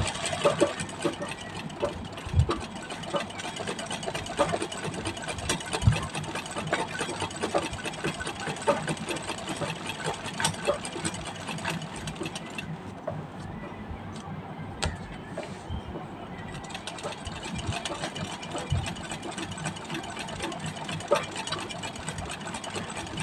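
Treadle sewing machine stitching free-motion embroidery, its needle running in a fast, steady clatter. It stops for a few seconds around the middle, then starts stitching again.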